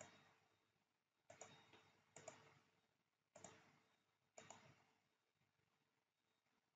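Faint computer mouse clicks: five single or quick double clicks about a second apart, each trailing off briefly, as objects are picked for the extend command in CAD software.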